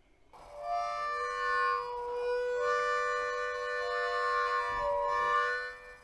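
Short instrumental intro music of layered, sustained held notes that swells in just after the start and fades out near the end.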